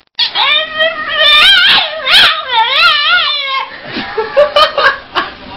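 French bulldog howling and whining in a long warbling run of rising and falling cries, the dog 'babbling' as if talking. It breaks into a few short yips near the end.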